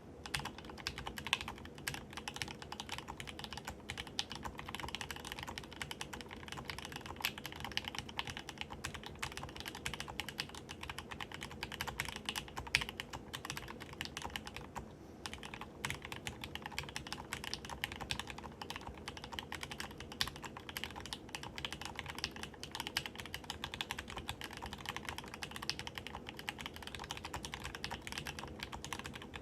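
Mysterium mechanical keyboard being typed on at a steady fast pace: a continuous patter of keystrokes, with one brief pause about halfway through.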